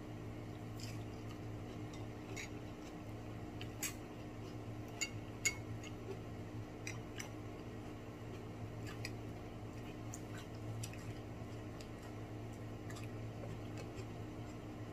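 Someone eating fried lobster: soft chewing and mouth sounds with scattered sharp little clicks and taps of handling the food, the loudest about four and five seconds in, over a steady low hum.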